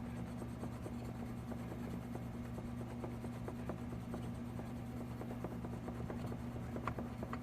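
An eraser scrubbing a plastic car door handle: light, scratchy rubbing made of many small strokes, over a steady low hum.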